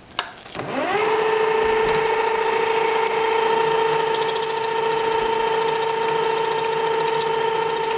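Metal lathe switched on with a click. Its motor whine rises in pitch for under a second as the chuck spins up, then holds steady while it turns a brass rod held against the tailstock centre.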